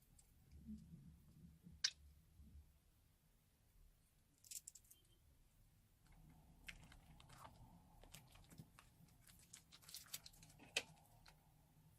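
Slime being squeezed from a piping bag, giving soft, scattered crackles and clicks, with a sharper pop about two seconds in and another near the end.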